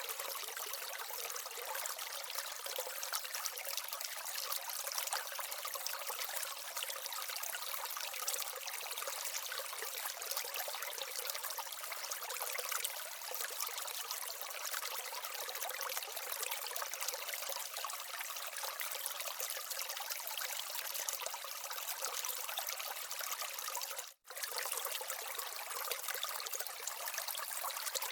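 Water trickling and splashing down the small waterfall and stream of an aquaterrarium, a steady babble that drops out for an instant about 24 seconds in.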